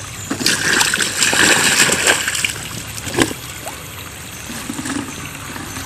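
Shallow, muddy ditch water splashing and trickling, busiest for the first couple of seconds and then settling to a quieter trickle, with one sharp knock about three seconds in.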